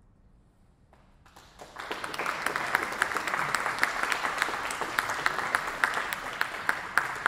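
Audience applauding. The clapping starts out of near silence about a second in, swells within half a second into a full round of claps, and stays steady.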